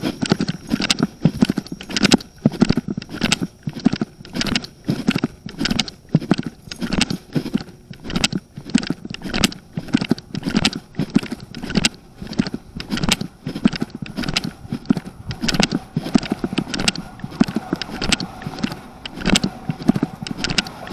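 Keys jangling in a steady rhythm, about two to three jingles a second, like a key ring swinging with each step. Faint steady tones join in during the last few seconds.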